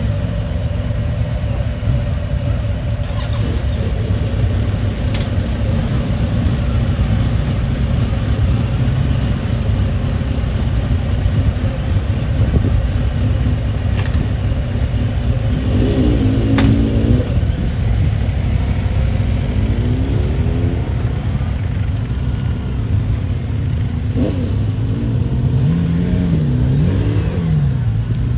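Kawasaki VN2000's big V-twin engine running under way with a steady low note. Its pitch dips and climbs again near the end as the throttle is eased off and opened.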